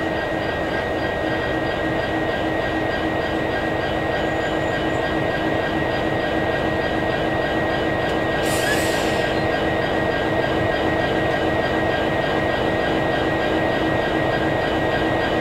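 Diesel-electric locomotives running slowly past at close range: a steady engine drone with constant hum tones. A short hiss comes about eight and a half seconds in.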